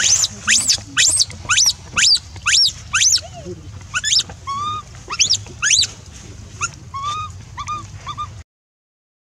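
Baby macaque crying in distress: a string of loud, high-pitched squeals, about two a second, each rising sharply in pitch. From about four seconds in the cries turn softer and lower, and the sound cuts off suddenly near the end.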